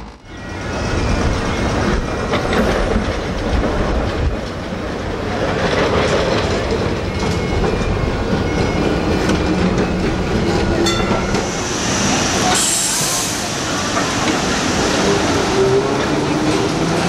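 Melbourne W-class trams running on street track: steel wheels rumbling and clacking on the rails, with a brief high-pitched wheel squeal a little past the middle.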